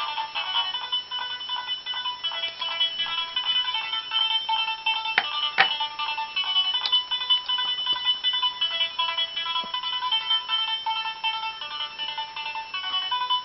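Background music: a bright, high-pitched electronic melody of quick plinking notes, like a ringtone or music box, with a couple of sharp clicks about five seconds in.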